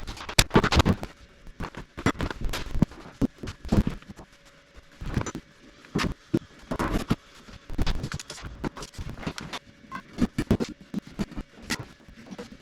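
Irregular knocks, clicks and scraping from hand work, coming in uneven clusters, over a faint steady hum.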